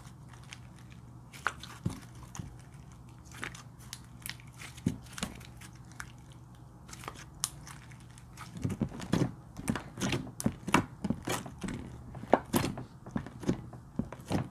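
Purple slime being squeezed and kneaded by hand, giving sticky wet clicks and pops. They come scattered at first, then from about eight seconds in as a dense run of crackling pops.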